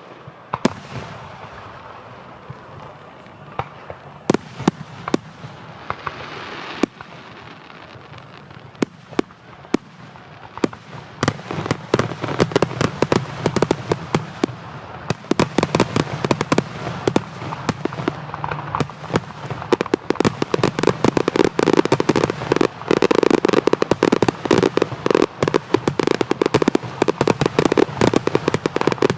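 Aerial fireworks display: separate shell bursts bang every second or two at first, then from about ten seconds in the bangs come faster and faster until they merge into a dense, continuous barrage with crackling.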